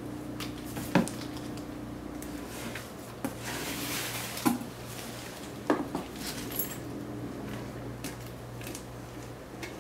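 Handling sounds while unpacking a cardboard carton: a few sharp knocks and clicks as the decorated box is handled and set down, and a rustle about four seconds in as a hand rummages through polystyrene packing peanuts.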